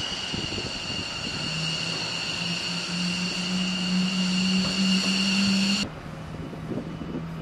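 Steady high-pitched turbine whine of aircraft machinery on a flightline over a low hum. The whine cuts off suddenly about six seconds in, while a lower hum carries on.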